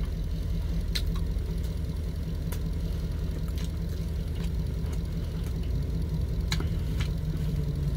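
Truck engine idling steadily, a low drone heard from inside the cab, with a few faint sharp clicks.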